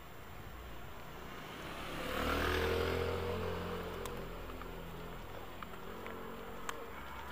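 A motorbike passing by, its engine swelling to loudest about two to three seconds in, with its note falling in pitch as it goes past, then fading away.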